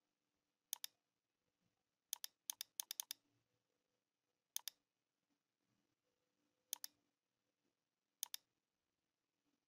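Computer mouse button clicking, each click a quick double snap of press and release, over near silence. One click comes about a second in, a quick run of five or six follows around two to three seconds, and single clicks come near four and a half, seven and eight seconds.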